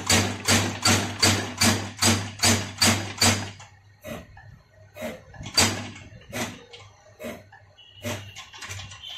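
New MICO diesel injector nozzle on a hand-lever pop tester, spraying fuel with each quick lever stroke. The bursts of spray come about two and a half a second, then slow and grow fainter after about three and a half seconds. The fine, full mist shows the nozzle atomising properly at its set opening pressure. A high steady tone joins near the end.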